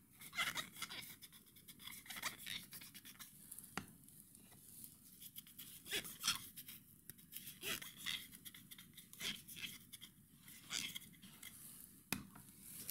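Chlorhexidine cleaning wipe scrubbing and rustling against the rubber tops of blood culture bottles: faint, short, scratchy rubbing strokes. A sharp click near the end as a bottle is set down in a plastic tray.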